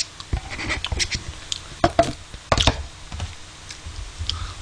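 A plastic spoon scraping and tapping in a paper ice cream cup, and the cup knocking as it is set down on a table. Scattered short clicks and a few sharper knocks.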